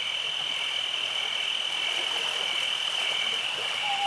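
A chorus of frogs calling steadily, high-pitched and without a break.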